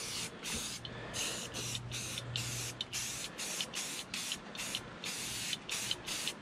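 Aerosol can of Krylon black spray paint hissing in short, quick bursts, about two or three a second, as the nozzle is pressed and released to mist paint onto the wood.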